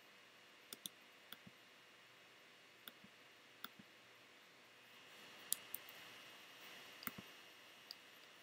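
Computer mouse clicking, a dozen or so sharp clicks spread out and often in quick pairs, over near-silent room tone. A faint hiss rises slightly about halfway through.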